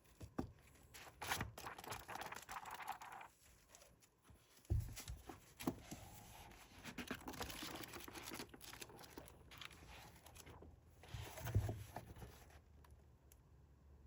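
A book being handled and its paper pages turned: bursts of paper rustling, with a couple of soft thumps.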